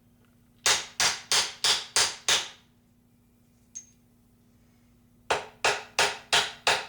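Hammer striking a punch to drive a greased lead slug into the muzzle of a Mauser rifle barrel, a step in slugging the bore. Two runs of about six quick, sharp blows, roughly three a second, with a pause of a couple of seconds in between.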